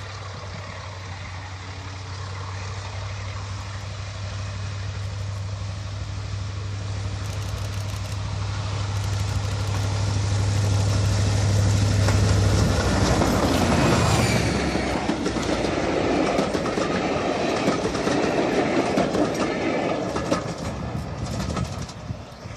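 Class 35 Hymek diesel-hydraulic locomotive approaching with a steady low engine drone that grows louder, then drops away as it passes about 13 seconds in. The train's coaches follow, rumbling and clattering over the rail joints, and fade near the end.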